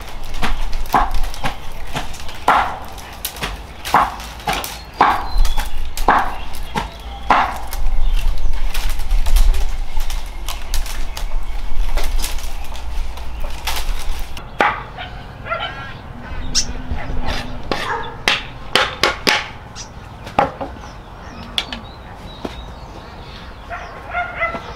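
Repeated chopping strokes, roughly one or two a second, each a sharp knock. About halfway through they give way to lighter, more irregular knocks and clicks.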